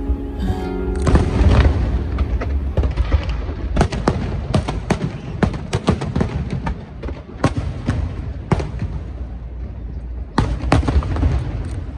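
Aerial fireworks exploding in quick, irregular succession: many sharp bangs and crackles over a continuous deep rumble. The last notes of the accompanying music stop about a second in.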